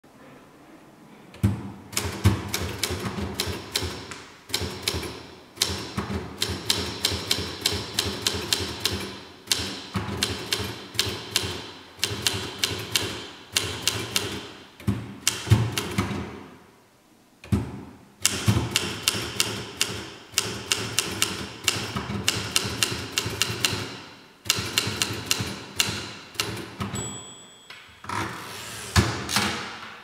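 A 1960s Optima M12 manual type-bar typewriter being typed on: fast runs of key and type-bar strikes, many a second, in bursts of a few seconds broken by short pauses. A brief ringing tone sounds near the end.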